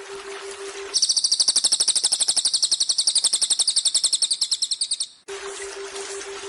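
A cililin songbird singing one fast, high trill of evenly repeated notes, about ten a second, lasting about four seconds. It cuts off abruptly. Before and after the trill, a waterfall's steady rushing fills the gaps.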